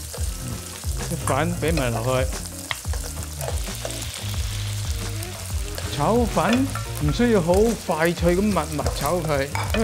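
Sliced onions sizzling in a very hot wok while they are stirred. Fresh flat rice noodles are then tipped in on top of them.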